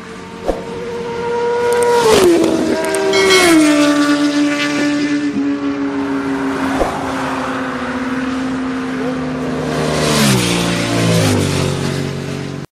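Fast vehicles passing by, the engine pitch dropping as each goes past. Two pass a couple of seconds in, and another two near the end.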